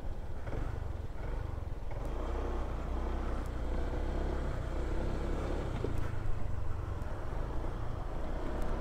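Honda ADV 150 scooter's single-cylinder engine running steadily under way.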